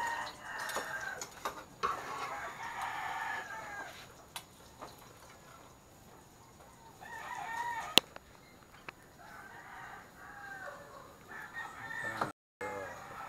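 Roosters crowing repeatedly, about five drawn-out crows, with a single sharp click about eight seconds in.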